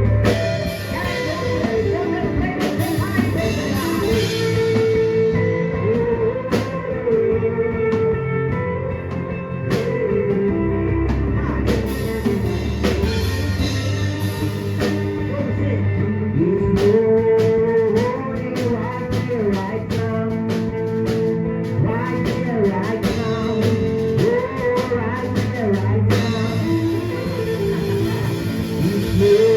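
Gospel worship band playing, with drum kit and guitar, and some singing over it.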